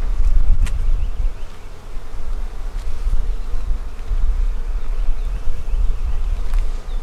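Honeybees buzzing around an open hive as a frame of nurse bees is lowered in, over a loud low rumble. A single sharp wooden click comes about half a second in.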